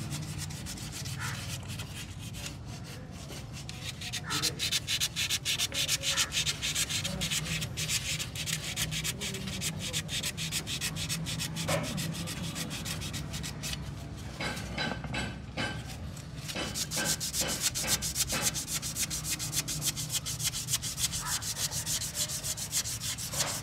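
Hand-scrubbing of a car's rusty rear wheel hub: rapid back-and-forth scraping strokes on the metal hub face between the wheel studs, with a few short pauses, cleaning off rust before the brake drum goes back on.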